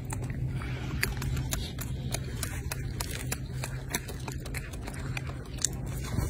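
Golden snub-nosed monkey chewing a piece of fruit: a run of small, irregular crunching clicks over a steady low hum.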